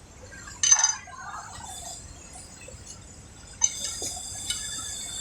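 Two sharp metallic clinks about three seconds apart, small metal parts and tools knocking while a needle is fitted into the needle bar of a single-needle sewing machine.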